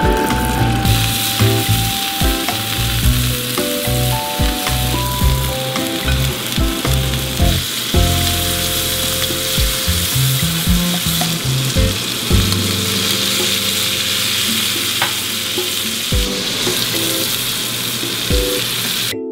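Scallops searing in hot oil in a small cast-iron skillet: a steady sizzle that grows louder about a second in, when the scallops go into the pan. Background music with a bass line plays underneath.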